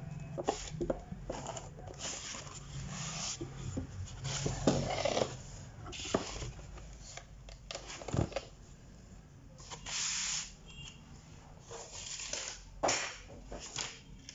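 Irregular scraping, rubbing and clicking of hardware being handled by hand, with a faint low hum underneath.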